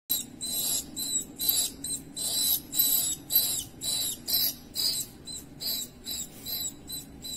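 A small rodent cornered by a cat squeaking over and over, short shrill distress squeaks about three a second, some bending down in pitch.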